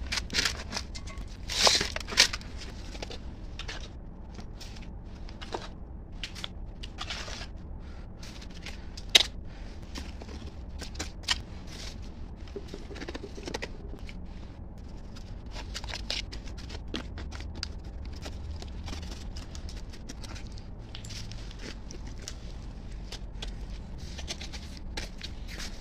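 Plastic bag crinkling and gravel chippings crunching as they are handled and pressed into the bag, with irregular short clicks, a few louder ones near the start and one about nine seconds in, over a low steady hum.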